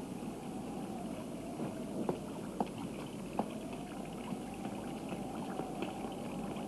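Steady rushing noise with a faint tone that slowly wavers up and down, and a few soft clicks about two to three seconds in.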